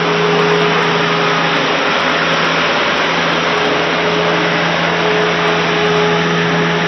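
Ride-on concrete power trowel running steadily while finishing a fresh concrete slab: an even engine hum with a constant drone beneath it.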